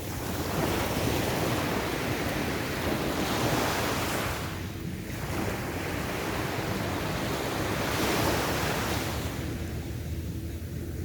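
Waves breaking and washing up on a beach, in two swells: one about half a second in, another around five seconds that dies back near the end. Wind rumbles steadily on the microphone underneath.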